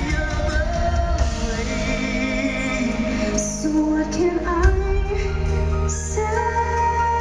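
Live concert music: a male and a female singer trading lines in a duet, over a sustained band accompaniment.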